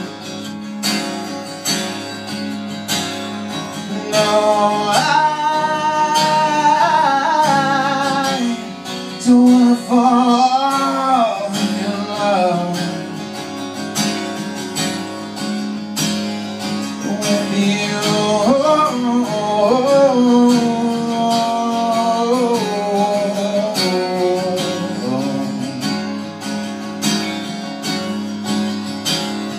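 Two acoustic guitars playing a slow ballad, with a lead melody line in long, wavering phrases over them at intervals.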